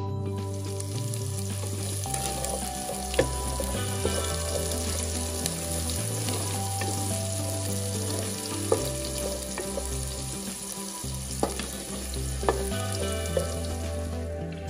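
Chopped garlic and bay leaves frying in oil in a metal pot, sizzling steadily while a wooden spoon stirs, with a few sharp knocks scattered through. Background music with a steady bass plays underneath.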